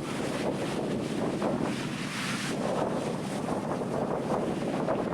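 Ocean surf washing on a sandy beach, a steady rushing noise, with wind buffeting the microphone.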